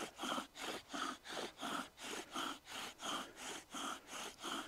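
Bow drill being worked: a wooden spindle spun by a bow's cord in a hearth board notch, rasping with each stroke of the bow at about three strokes a second. The rate and pressure are held steady now that the hearth is smoking and grinding out powder toward an ember.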